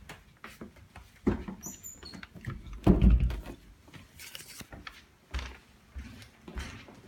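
Footsteps and phone-handling thumps while walking through rooms, the heaviest knock about three seconds in, with a brief high squeak about two seconds in.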